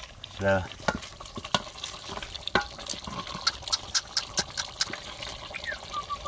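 A wooden stirring stick working through simmering beef stew in an aluminium pot: liquid sloshing, with many sharp clicks, most of them between about three and five seconds in.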